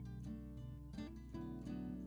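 Background music: acoustic guitar plucking and strumming.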